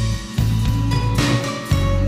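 Background music track with a steady bass line, guitar and drum hits.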